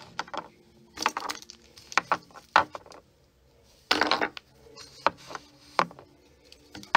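Irregular clicks and knocks of a plastic bottle and its flip-top cap being handled, with a short louder rustle about four seconds in.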